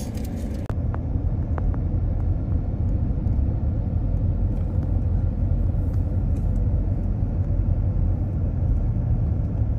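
Steady low rumble of road and wind noise from a car driving along, heard from inside the vehicle.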